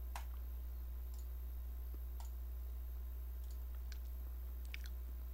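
Steady low electrical hum with a few faint, scattered clicks, about half a dozen spread through the stretch.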